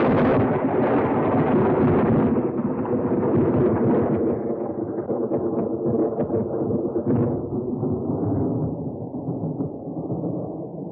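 Castle Thunder stock sound effect: the long rolling rumble of a thunderclap just after its crack, fading slowly and growing duller, with a few faint crackles about two-thirds of the way through.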